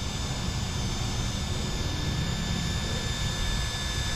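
Steady low rumble and hiss with a faint, thin high-pitched whine held underneath.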